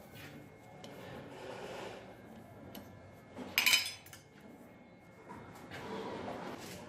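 Steel clinks and light knocks as the cross-and-yoke universal joint is moved in the lathe chuck. There is one loud ringing clank about three and a half seconds in.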